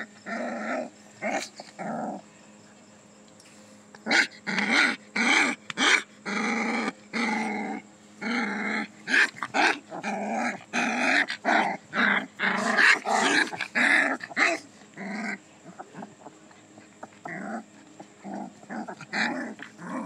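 Two puppies growling as they wrestle and mouth each other, in a rapid string of short growls that is thickest through the middle and thins out near the end.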